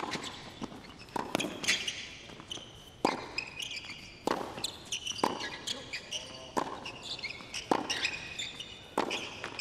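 Tennis rally: about ten crisp racket-on-ball hits, roughly one every second or so, with short high squeaks of tennis shoes on the hard court between the shots.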